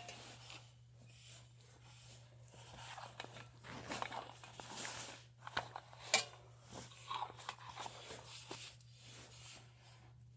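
A cloth rubbing and wiping a chrome car horn ring dry: faint, irregular rustling and scraping with a few light clicks of the metal ring being handled.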